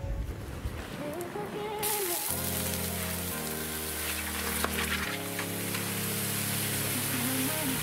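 Water hissing and sizzling on the burning and melted remains of a plastic doll, starting about two seconds in and running on steadily, under background music.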